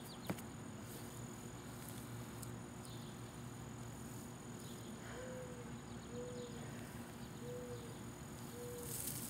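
Quiet outdoor background with a single faint click soon after the start, then four short faint tones about a second apart in the second half.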